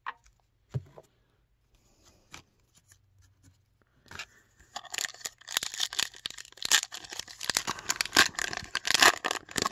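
A plastic wrapper on a Topps Japan Edition baseball card pack crinkles and tears as the pack is ripped open, starting about five seconds in. Before that come a few soft, isolated clicks of cards being handled.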